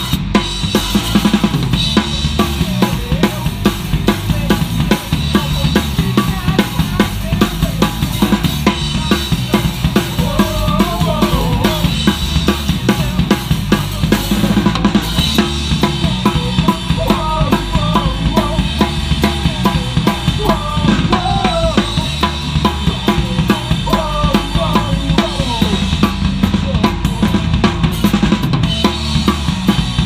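Horror punk band playing live, the drum kit loudest: dense, driving bass drum and snare hits with cymbals, over bass guitar and electric guitar. A wavering melody line comes and goes in the middle of the sound from about ten seconds in.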